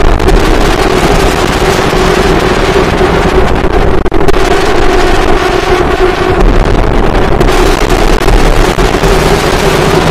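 Heavily distorted, bass-heavy electronic music: a dense wall of buzzing synth with a steady held tone and deep sub-bass, dropping out for an instant about four seconds in.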